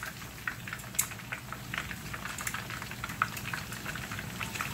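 Chicken drumsticks in their second, crisping fry in hot oil in a nonstick pan, with the heat raised: the oil sizzles with many small crackles and pops. An occasional sharper click comes from metal tongs turning the pieces against the pan, and a steady low hum runs underneath.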